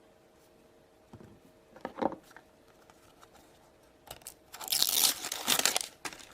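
Plastic blind-bag wrapper being handled, then crinkling and tearing loudly as it is ripped open, over a couple of seconds near the end.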